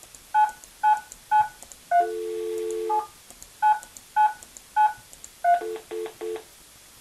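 Avaya Agent for Desktop softphone playing touch-tone (DTMF) keypad beeps, one per key, as an agent ID is dialed on its dial pad. A steady dial tone sounds for about a second partway through. Three short beeps near the end come as the agent login is accepted.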